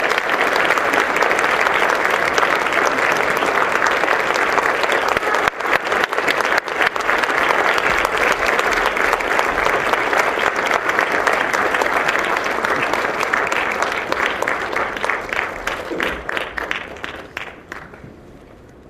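Audience applauding steadily, thinning to scattered individual claps and fading near the end.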